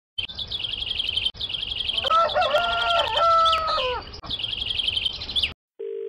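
A rooster crowing once over fast, repeated bird-like chirping, as the opening sting of an animated rooster logo. The chirping cuts off suddenly near the end, and a steady telephone ring tone begins.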